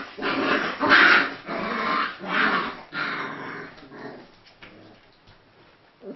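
28-day-old Central Asian Shepherd puppies play-growling as they wrestle, a run of rough growls over the first four seconds, loudest about a second in, then dying away.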